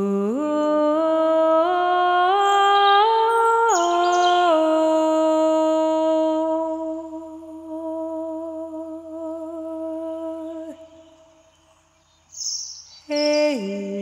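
A single voice singing a wordless melody. It climbs in small steps, drops, and settles on a long held note with vibrato that stops about eleven seconds in. A new note starts near the end and slides down.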